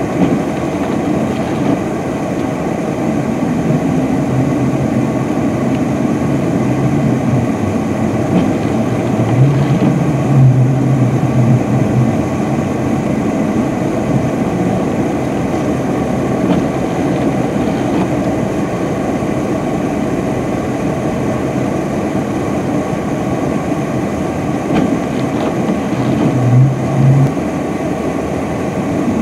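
UPS package truck's engine working hard as it pushes through deep snow, its rear wheels spinning and throwing snow. The engine swells louder twice, about ten seconds in and again near the end.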